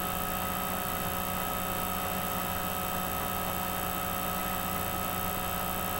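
Steady electrical hum and hiss from the computer recording setup, with several fixed tones held throughout. No distinct handling clicks stand out.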